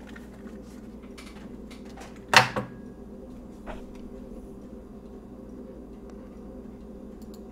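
Steady low electrical hum in a small room, with a sharp knock about two and a half seconds in, followed at once by a smaller second one, and a faint click a second later.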